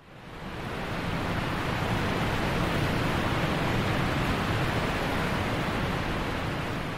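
Steady rushing noise that fades in over about the first second and eases slightly near the end.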